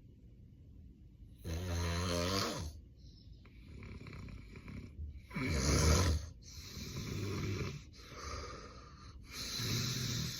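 Heavy snoring from a sleeping man with severe sleep apnea: a loud pitched snore about a second and a half in, an even louder one around six seconds, and noisy snoring breaths roughly every one to two seconds after that.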